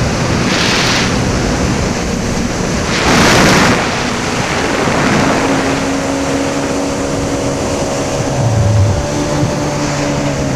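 Personal watercraft engine running at a steady note while cruising, over rushing water and wind on the microphone, with two louder whooshes about half a second in and around three seconds in.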